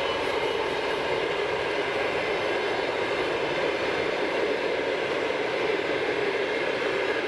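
TEP70 diesel locomotive running steadily under power, its diesel engine's drone with the high whistle of the turbocharger over it.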